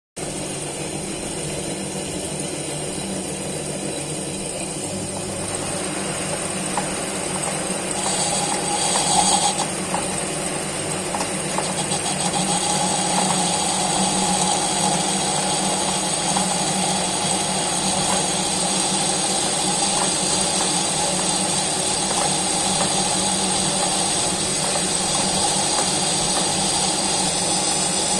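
Metal lathe running while a cutting tool turns down a rusty die steel bar: a steady machine hum, a louder scrape of the tool about 8 to 9 seconds in, then a steady whine of the cut from about 12 seconds on.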